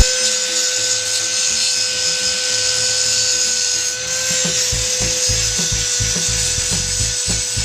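Background music over a steady whine and hiss, with a run of quick low clicks starting about halfway in.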